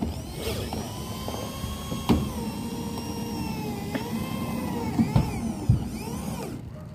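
Electric drill running at changing speed, its whine wavering up and down as it drives roofing screws into uPVC roof sheets. Several sharp knocks come about two seconds in and again near the end.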